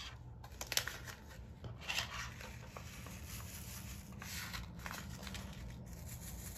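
Quiet handling noises as white plastic diamond-painting drill trays are moved and set down on a wooden tabletop: a few soft clicks in the first two seconds, then faint rustling over a low steady room hum.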